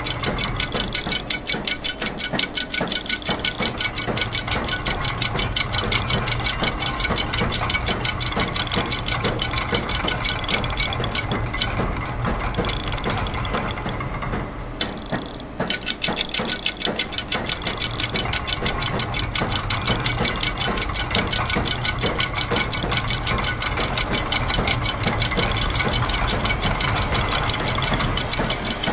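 Layered, looped machine sounds of gears, ratchets and clockwork mechanisms. They form a dense, fast clicking texture over a steady low mechanical hum. The high clicking thins out briefly around the middle and then returns.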